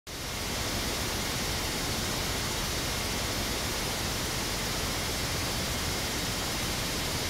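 Steady, even hiss with no tone or rhythm, starting abruptly in the first instant and holding level throughout.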